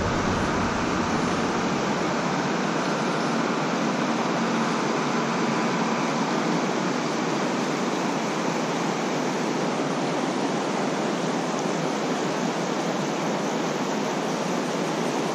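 Fast-flowing river current rushing over shallow riffles: a steady, unbroken wash of water noise.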